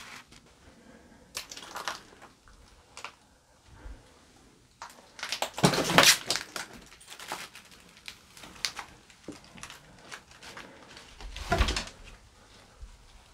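Rustling, crunching and clattering as someone steps and climbs through a pile of junk and debris. It is loudest about five to six seconds in and again near the end.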